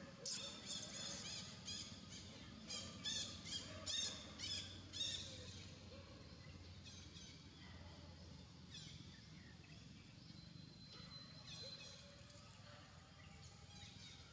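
Birds chirping outdoors: a quick run of short, high calls for about the first five seconds, then fewer, scattered calls over a faint low background hum.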